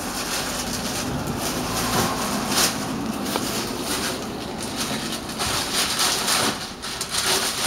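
Plastic rubbish bags rustling and crinkling as they are rummaged through and handled, in a rapid, irregular series of crackly rustles.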